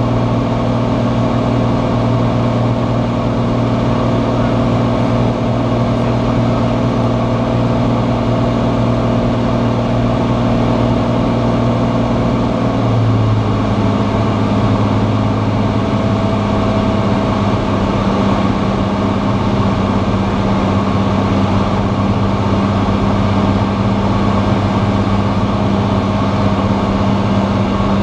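Cirrus SR20's six-cylinder Continental engine and propeller droning steadily, heard from inside the cockpit. About halfway through, the drone steps down to a lower pitch and holds there: a power reduction.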